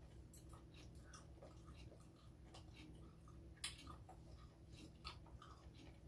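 Faint close-up chewing: soft wet clicks and small crunches of food being eaten, with one sharper click about halfway through.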